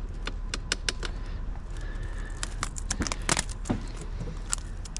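Irregular clicks and light taps of a metal-tipped hand tool and hands working at a wicker patio chair's frame, probing it to see whether the frame is aluminum. The clicks come in clusters, thicker from about three seconds in.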